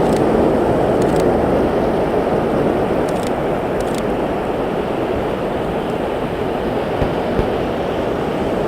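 Steady roar of ocean surf, with a few faint clicks.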